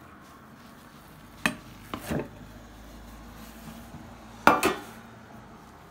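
A metal baking tin knocking against a ceramic serving platter as a block of set polenta is turned out onto it: a sharp knock about a second and a half in, two more about two seconds in, and a louder clatter about four and a half seconds in.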